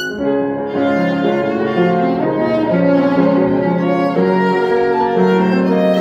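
Violin and grand piano playing together: the violin bows a melody of short, quickly changing notes over the piano's accompaniment.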